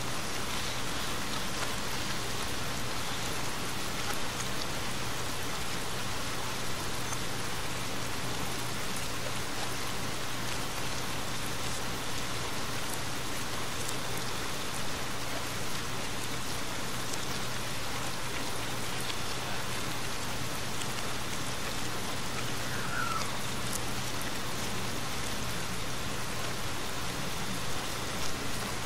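Steady rain falling, an even hiss with scattered faint ticks.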